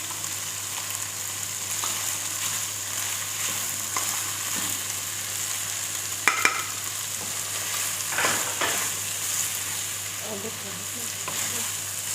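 Chicken, tomatoes and spices frying on a tawa with a steady sizzle. A spatula stirs the masala in, knocking and scraping against the pan a few times partway through.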